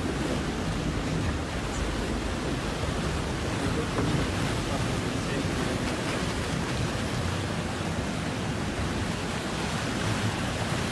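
Steady rush of choppy, splashing sea water churned by a large feeding dolphin pod, with wind noise on the microphone.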